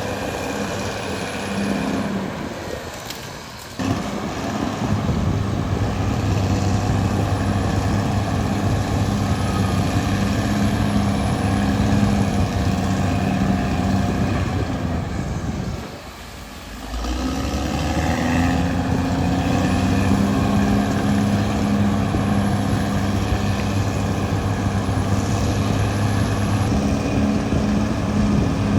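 Caterpillar D6R XL bulldozer's diesel engine running with a steady low hum. The sound drops away twice, about three seconds in and again around sixteen seconds, then comes back abruptly.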